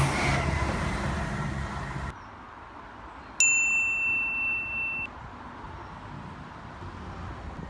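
Steady vehicle noise stops abruptly about two seconds in. About a second later a single electronic beep sounds: one steady high tone, held about a second and a half, then cut off.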